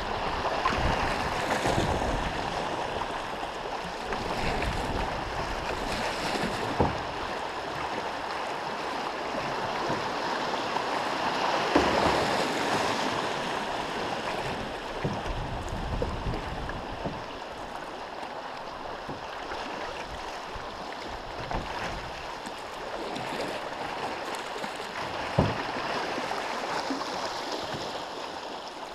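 Fast river current rushing through shallow riffles around a canoe: a steady hiss of moving water. There are a few sharp knocks, one about seven seconds in, one near the middle and one near the end.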